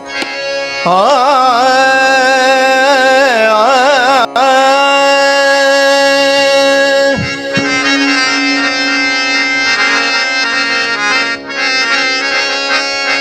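Harmonium sustaining a steady drone, with a wordless sung line wavering in pitch over it in the first few seconds and then held long. After that the harmonium carries on alone with held notes, as the introduction to a Warkari abhang.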